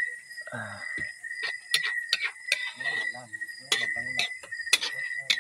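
Spatula clicking and scraping against a steel wok while a coconut-milk stew is stirred, a string of short sharp knocks, the loudest about two, four and five seconds in. A steady high cricket trill runs underneath.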